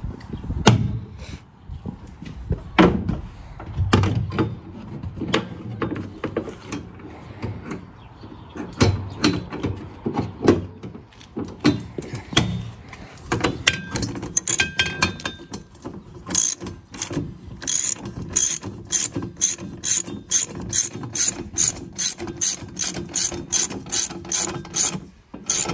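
Hand ratchet wrench tightening the bolts of a spare tire carrier bracket on a van's rear door hinge, its pawl clicking. The clicks are irregular at first, then settle into a steady run of about two a second in the last third, running the bolts up snug before final torquing.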